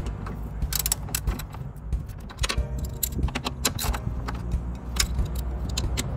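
Metal hand tools and parts clinking and tapping against each other in quick, irregular strokes, over a steady low hum.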